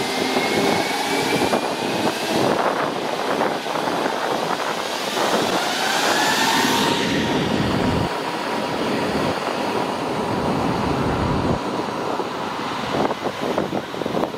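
Airbus A320's twin jet engines spooling up to takeoff thrust: a whine that rises in pitch and then holds steady over a loud roar. The jet blast buffets the microphone as a heavy low rumble in the second half.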